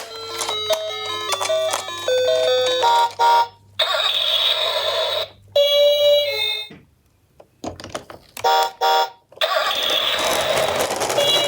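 A quick electronic tune of stepping notes. Then a toy ambulance's battery-powered siren sound effect plays through its small, raspy speaker in several bursts, with a brief near-silent gap about seven seconds in.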